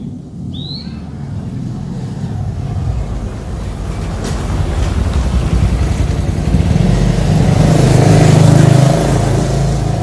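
A motor vehicle approaching and passing close by. Its engine hum and tyre noise grow steadily louder to a peak near the end.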